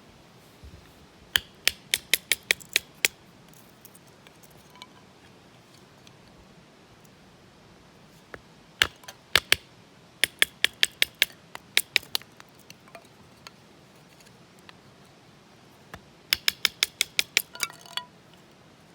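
Three runs of quick, sharp clicks with a slight metallic ring, several a second, each run lasting one to three seconds.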